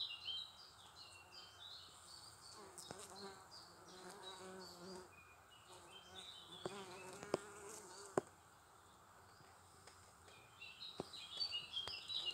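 Honeybees buzzing as they fly in and out of the entrance of a log hive, single bees droning past with a wavering pitch. A few sharp ticks come about two thirds of the way through.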